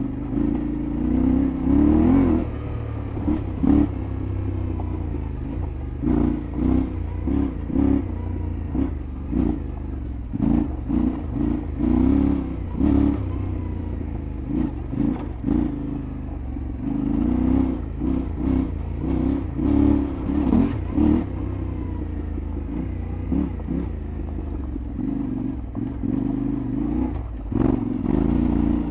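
Yamaha Ténéré 700 World Raid's parallel-twin engine being ridden off road, the throttle opened and closed again and again so the revs surge and drop every second or so. Short knocks and clatter from the bike over rough ground come through throughout.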